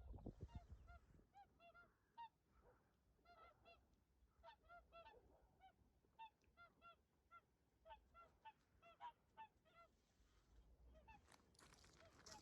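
A flock of wild swans calling in the distance: many short, faint honking calls, often in pairs, a few every second. A rough rustling noise comes in near the end.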